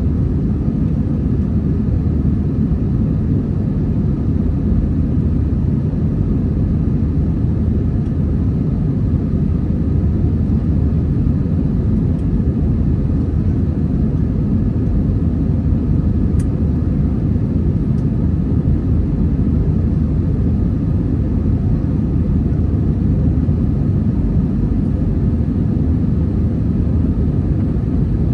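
Airbus A320 airliner's IAE V2500 jet engines, a steady low rumble with a faint hum that holds an even level throughout.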